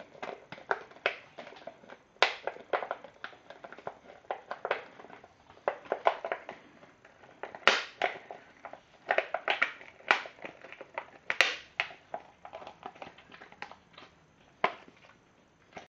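Thin plastic yoghurt pot crackling and crinkling unevenly as a bull terrier licks and pushes its tongue and muzzle into it, with a few louder cracks about two, eight and eleven seconds in.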